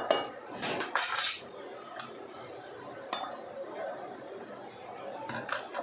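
Steel slotted spoon scraping and clinking against a nonstick kadhai as grated carrots frying in ghee are stirred, in irregular strokes with the loudest scrapes about a second in, and a few short metal clicks near the end.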